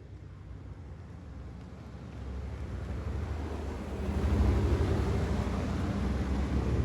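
Wind rumbling on the microphone, with the low sound of a car engine growing steadily louder as it approaches over the last few seconds.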